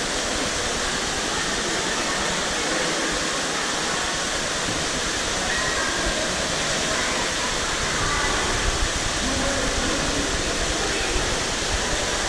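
Steady wash of indoor swimming pool hall noise: water splashing and running, with faint, echoing, indistinct voices of swimmers.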